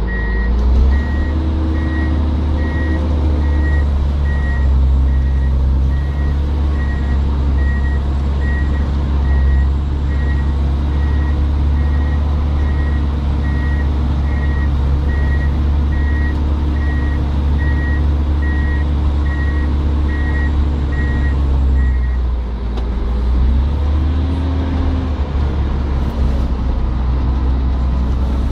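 Diesel engine of a heavy snow-clearing machine heard from inside its cab, revving up about a second in and running steadily under load while its reversing alarm beeps a bit more than once a second. About 22 s in the beeping stops and the engine drops off, then revs up again.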